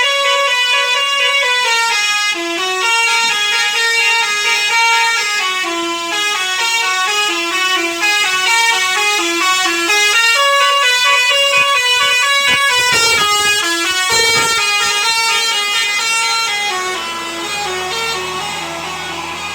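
Basuri telolet bus horn, a multi-trumpet musical horn, playing a melody of held, stepped notes one after another. A low steady hum joins it near the end as the tune gets quieter.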